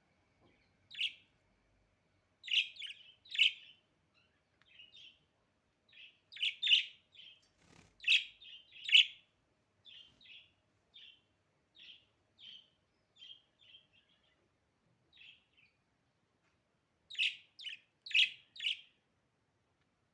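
Budgerigar chirping: short, sharp chirps in loose bursts, with louder clusters near the start, around the middle and near the end, and softer single chirps in between.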